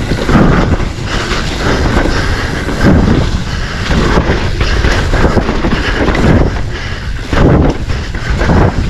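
Wind buffeting the microphone of a mountain bike ridden fast down a dirt trail, with tyre and bike noise over rough ground, coming in surges.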